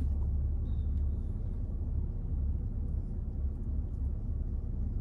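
Steady low rumble inside the cabin of a parked car that is running.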